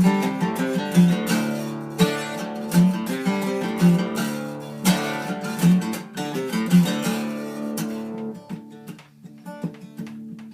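Acoustic guitar strumming a blues accompaniment, with a strong chord stroke about once a second, growing quieter over the last few seconds.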